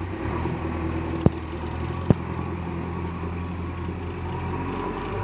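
Heavy diesel engine running steadily at low revs, with two sharp knocks a little over a second in and about two seconds in.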